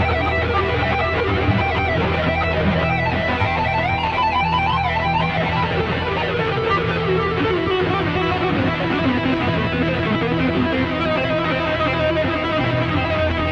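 A band playing an instrumental opening piece, with guitar over a sustained bass line.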